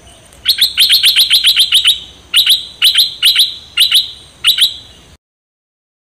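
Stripe-throated bulbul calling: a quick run of about ten sharp notes, then a slower string of spaced notes. The recording cuts off suddenly about five seconds in.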